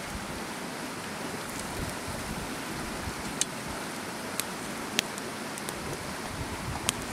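Wood fire burning under a pan of chicken and onions in broth: a steady hiss with a few sharp crackling snaps in the second half.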